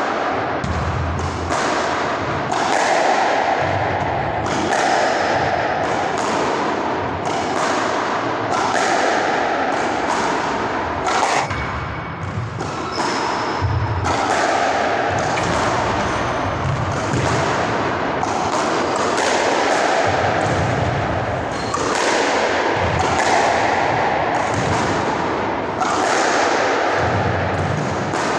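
A squash ball hit hard with a racket again and again in a feeding drill, about once a second. Each hit is sharp and rings with the echo of the enclosed court as the ball strikes the walls.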